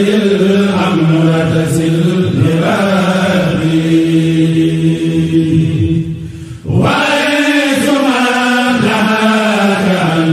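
Arabic religious poetry chanted in the Mouride khassida style, the voice holding long drawn-out notes, with a brief pause about six and a half seconds in.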